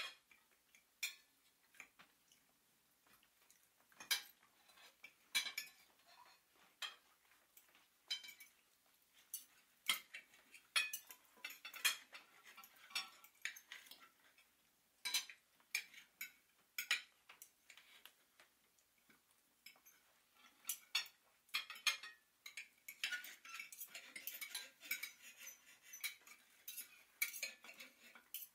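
Dishes and cutlery clinking and clattering in irregular sharp clicks, busier for a few seconds near the end.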